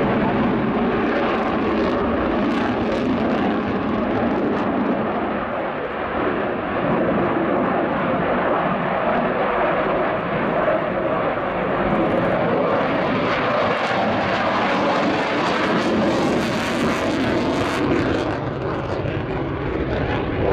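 Sukhoi Su-27 fighter's twin AL-31F turbofan engines running loud and steady as the jet manoeuvres in a flying display. For a couple of seconds near the end the sound turns brighter and hissier.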